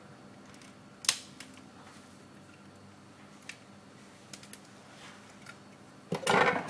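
Small clicks and taps from handling a Nokia 6720 classic phone and its parts during disassembly: one sharp click about a second in, a few faint ticks, and a louder, longer burst of noise near the end.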